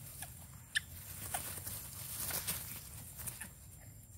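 Young macaques wrestling on grass and dry leaves: scattered scuffling and rustling, with one short high squeak about a second in.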